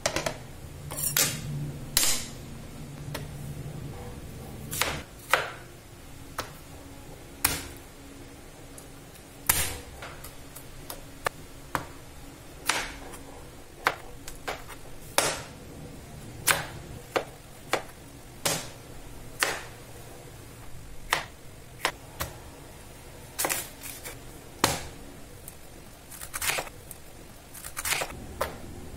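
Kitchen knife slicing bell pepper and cabbage on a plastic cutting board: sharp, irregular taps as the blade strikes the board, about one a second. The loudest knocks come near the start, as the cutting board is set down.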